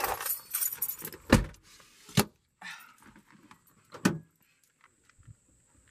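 Jingling, rattling handling noise like keys, then sharp knocks about a second and a half in, at just over two seconds and at about four seconds, as someone climbs out of a truck cab.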